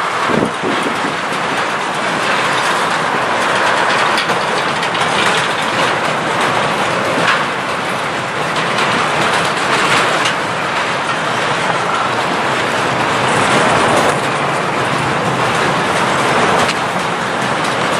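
Freight train with eight-axle tank cars rolling past, a loud steady rumble of wheels on rail with occasional sharp clacks as wheels cross rail joints.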